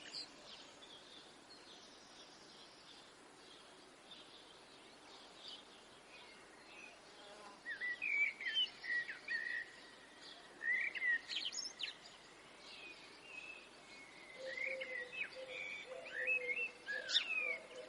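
Wild birds calling in woodland: faint background for the first several seconds, then a run of short, quick chirps and trills from about halfway in. Near the end a low drawn-out call joins them.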